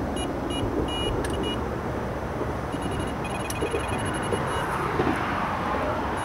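Electronic carp bite alarms beeping as the rods on the pod are handled: a few short beeps in the first second and a half, then a longer run of rapid beeps from about three to four and a half seconds in. Steady road traffic noise underneath.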